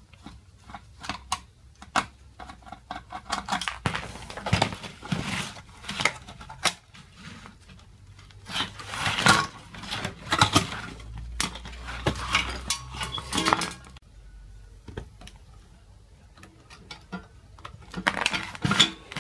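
Metallic clinks, clicks and rattles of an ATX computer power supply being taken apart: a screwdriver on the board's screws and the steel case and circuit board being handled as the board is lifted out. The clatter thins out for a few seconds about two-thirds of the way through.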